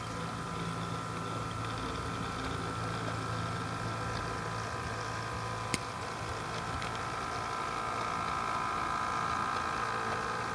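HO scale model train running past on its track: a steady electric-motor hum with a higher whine over it, swelling slightly as the train comes closest, and a single sharp click a little over halfway through.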